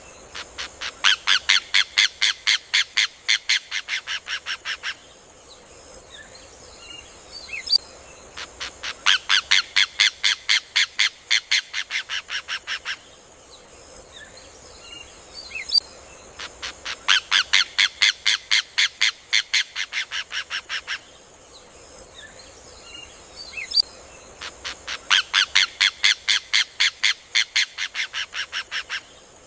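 Rufous hornero (João-de-barro) singing in four bouts, each a single sharp note followed about a second later by a fast run of loud notes, about five a second, lasting some four seconds and fading slightly toward its end. A steady high hiss runs underneath.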